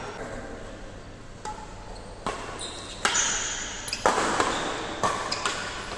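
Badminton rackets striking a shuttlecock in a doubles rally: after a quiet start, sharp hits about a second apart, with a few short squeaks of shoes on the court mat.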